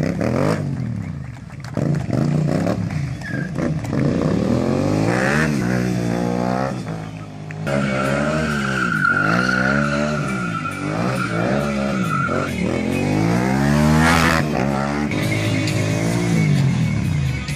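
Stunt motorcycle's engine revving up and down over and over during stoppies and wheelies, with a steady tyre squeal held for several seconds in the middle.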